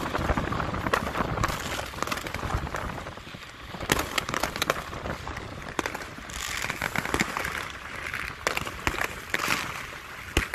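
Fireworks going off: a series of sharp bangs and pops, with dense crackling from about six seconds in.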